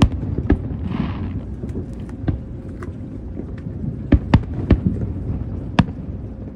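Aerial fireworks shells bursting over water: a string of sharp booms, with a quick cluster of three about four seconds in, over a steady low rumble.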